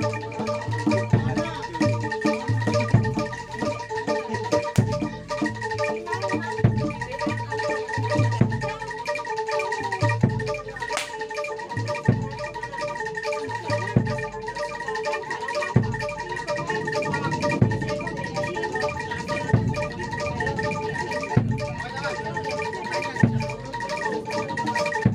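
Javanese gamelan music accompanying kuda lumping: bronze metallophones ring a fast, steady interlocking pattern, with deep beats about every two seconds.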